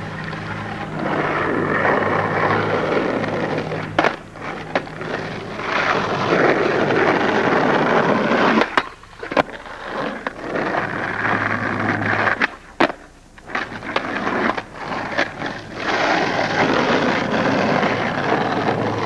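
Skateboard wheels rolling on an asphalt street in long stretches, broken by sharp clacks of the board popping and landing flip tricks.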